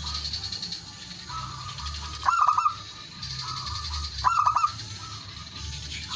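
Male zebra dove cooing: two short bursts of rapid, stuttering coo notes about two seconds apart, over steady background noise.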